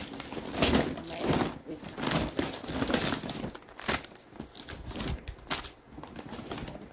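Plastic wrapping of a Huggies diaper pack crinkling as it is handled, in irregular bursts.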